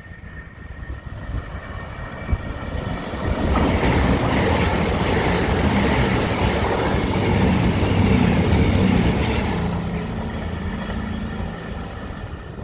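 A train passing: its rumble builds over a few seconds, holds loud through the middle, then fades away.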